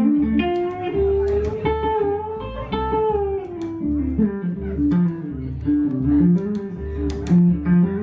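Live guitar and upright bass playing an instrumental intro: a plucked guitar melody with bent, sliding notes over a walking line of low bass notes.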